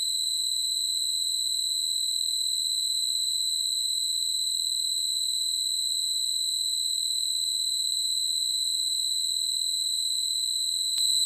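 A steady, high-pitched electronic tone, held unbroken and with no other sound, with a single click near the end after which it is a little louder.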